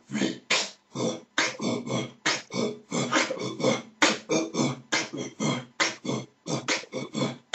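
A man beatboxing: a fast, unbroken run of percussive mouth sounds, about four a second.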